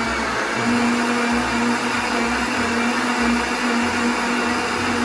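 Countertop blender running steadily, blending a liquid cake batter of milk, banana and oil with an egg just added, as a constant motor hum.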